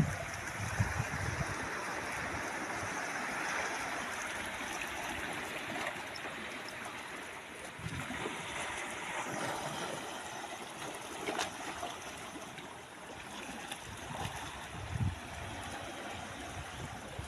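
Steady rush of running water, with a few short low thumps.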